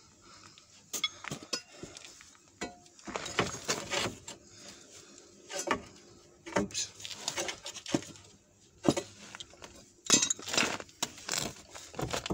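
Metal tools and parts clinking and knocking against each other, irregular sharp clinks scattered through, loudest about ten seconds in.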